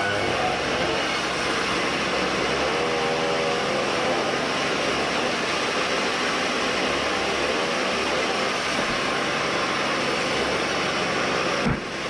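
Band sawmill running, a steady, dense machine noise with no breaks, with a brief drop just before the end.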